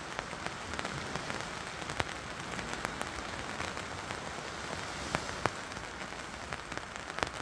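Steady rain falling, with many individual drops tapping sharply close by at irregular moments.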